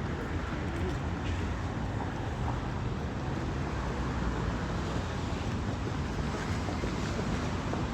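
Steady outdoor noise with a low rumble: wind on the microphone mixed with street traffic.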